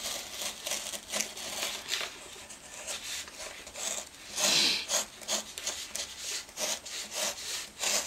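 Pen tracing firmly over a printed design on paper laid on Styrofoam, pressing the lines into the foam: a run of short, irregular scratching strokes, with a louder, longer stroke about halfway through.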